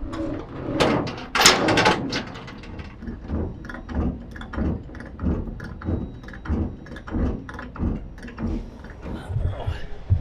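Wooden dunnage boards knocking and scraping against each other and the flatbed trailer's deck as a bulkhead is stacked in front of the load. The loudest knocks come in the first two seconds, followed by a steady run of dull thumps, about two to three a second.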